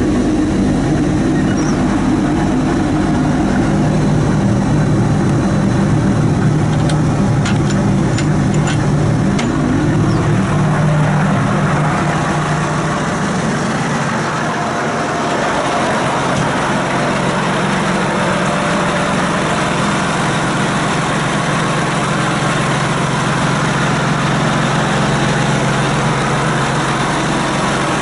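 John Deere 8220 tractor's six-cylinder diesel idling steadily, heard first from inside the closed cab and then more openly from outside beside the engine bay. A few sharp clicks come about seven to nine seconds in.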